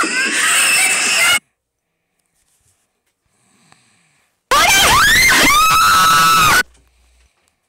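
A child's high-pitched scream, sliding up in pitch and then held, heard twice with a few seconds of silence between; the second scream cuts off suddenly.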